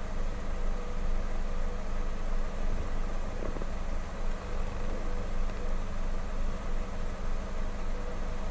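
Kawasaki W800's air-cooled parallel-twin engine idling steadily at a standstill.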